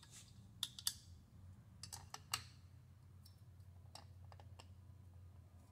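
Faint scattered clicks, a few close together in the first half and a few more later, over a steady low hum.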